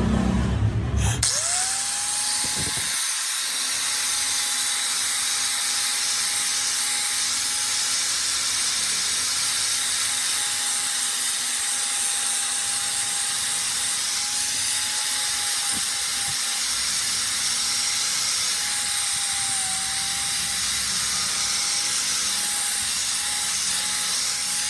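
An electric grinder spins up about a second in and then runs steadily, a constant whine over a high hiss, as it grinds a knife blade.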